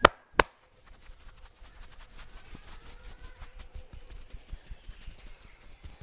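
Two sharp, loud cracks in quick succession right at the start, followed by a steady run of quick, soft rubbing and patting of hands working over the head during a head massage.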